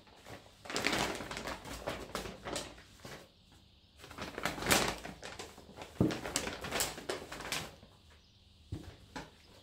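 Groceries being unpacked from a paper shopping bag: the paper rustles and crackles in bursts, and an item is set down on the table with a sharp knock about six seconds in.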